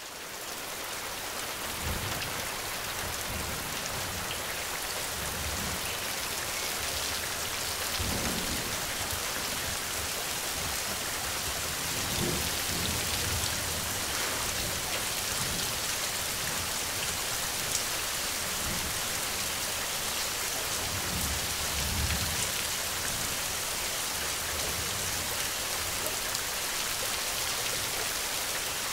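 Steady rain falling, a dense, even hiss of many drops, swelling in over the first second or two. Soft low rumbles rise and fall now and then beneath it.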